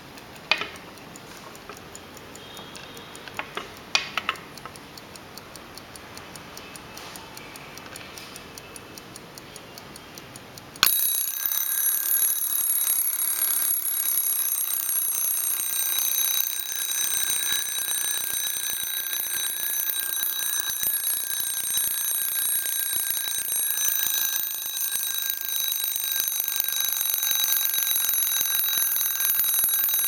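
Bird-cage alarm clock ticking faintly, with a few sharp clicks in the first few seconds. About 11 seconds in its alarm goes off suddenly and keeps going: a steady, much louder high-pitched ring.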